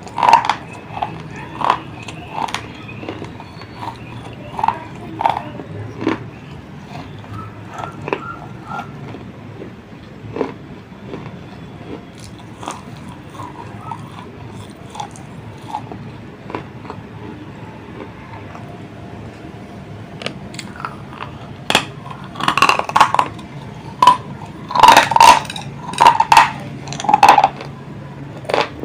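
Close-miked chewing of baked terracotta clay lamp pieces, with sharp crunches scattered at first, sparse in the middle, and a run of loud crunches in the last several seconds.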